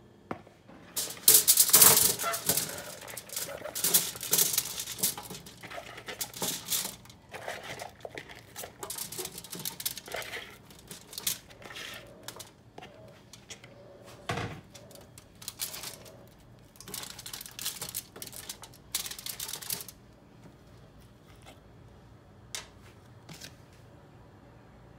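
Raw cauliflower florets tumbling out of a bowl onto a foil-lined baking tray and being spread by hand: a run of clattering and foil crinkling, loudest in the first couple of seconds. It thins out and stops after about twenty seconds, leaving only a few single clicks.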